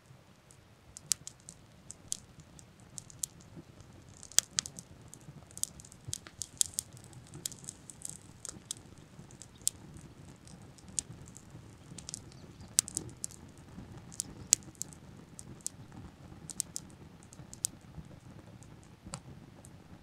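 Freshly lit tinder of dry grass and twigs crackling as it catches, with many irregular sharp pops and snaps.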